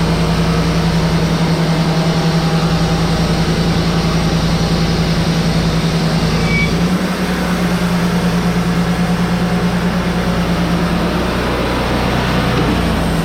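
Wood-Mizer LT35HD portable band sawmill running under power, its engine holding a steady note with the band blade running. About seven seconds in, the engine note steps up slightly and the low rumble drops.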